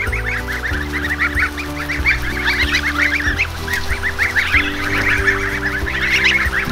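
A flock of young goslings peeping, many short high calls overlapping without a break. Soft background music with long held low notes runs underneath.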